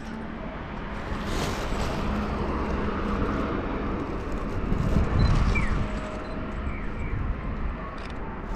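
Outdoor street ambience: a car passing, loudest about five seconds in, over a steady low traffic rumble, with a few short high chirps in the second half.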